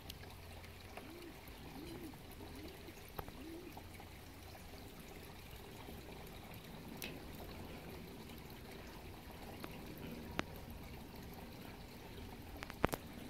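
Small fountain trickling, faint and steady, with a few sharp clicks in the second half.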